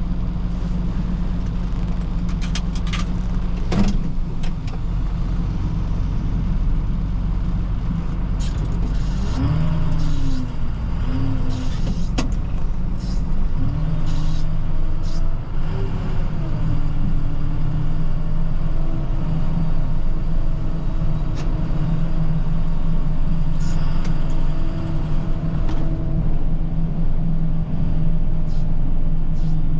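Snowplow truck's engine running steadily, then revving up about nine seconds in, its pitch rising and falling as the truck drives off, before settling into a steady run; a knock about four seconds in.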